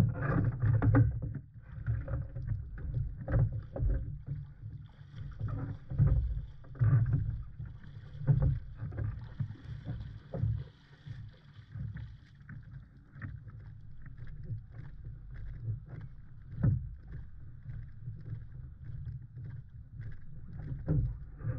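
Irregular knocks and bumps on a plastic kayak's hull, picked up by a camera mounted on it while the kayak is carried on someone's shoulder, over a steady low rumble.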